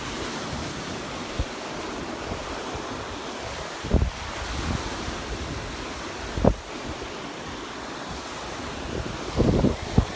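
Surf washing onto a sandy beach, a steady hiss, with wind buffeting the microphone in a few short low thumps.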